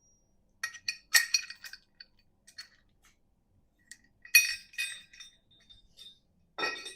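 Steel chain clinking against metal as it is handled: two clusters of short, ringing metal clinks, about a second in and again around four seconds in.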